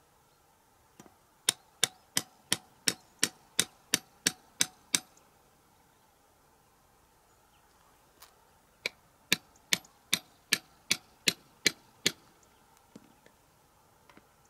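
Hammer tapping a thin metal stake into stony ground: two runs of sharp, evenly spaced blows, about three a second. The first run has about eleven strikes, then a pause of a few seconds, then about nine more.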